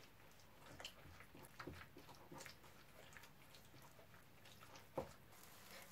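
Faint soft squelching and light clicks of a spoon stirring diced chicken with sour cream, starch and egg in a glass bowl, with one sharper tap about five seconds in.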